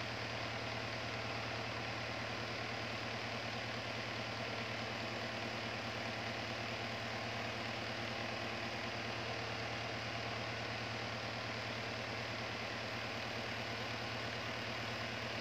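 Small plastic electric desk fan running steadily: an even rush of air from the blades over a low motor hum, with no change in level.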